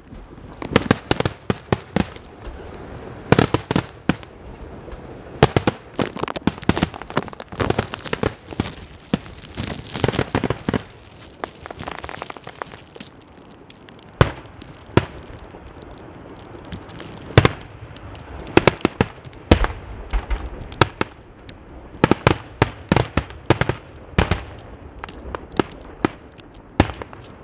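Aerial fireworks bursting overhead: irregular sharp bangs and crackling, coming in dense flurries about eight seconds in and again near the end, with a thinner stretch in between.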